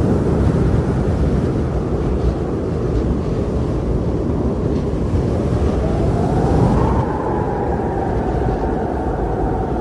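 Strong blizzard wind blowing in a loud, steady low rumble, with a howling tone that rises about six seconds in and then slowly falls.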